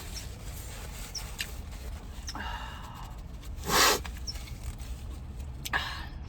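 Close-miked eating sounds: chewing and small mouth clicks while eating spicy chicken, over a steady low hum. A brief, louder hissing breath-like sound comes about four seconds in, with softer ones near two and a half and six seconds.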